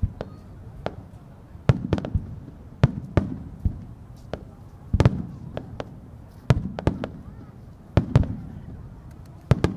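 Aerial firework shells bursting in irregular clusters of sharp bangs, a new cluster every second or two, each followed by a low rolling echo.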